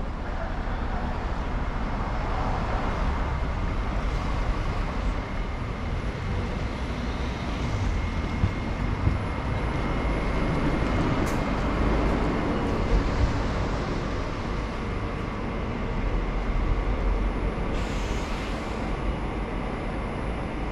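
City street traffic: motor vehicles passing with a steady low rumble, broken by a few brief knocks.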